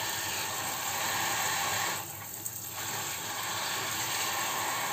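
Tap water running in a steady stream onto spinach leaves in a metal colander in a stainless steel sink as the leaves are rinsed by hand, briefly softer about two seconds in.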